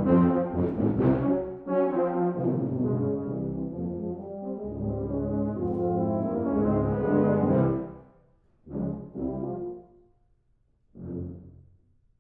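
Tuba and euphonium quartet playing loud, dense held chords that break off about eight seconds in, followed by two short, punched chords in quick succession and then a single last short chord.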